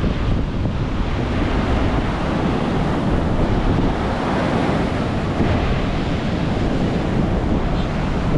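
Rough Atlantic surf breaking and rushing along the beach under strong wind, with wind buffeting the microphone throughout.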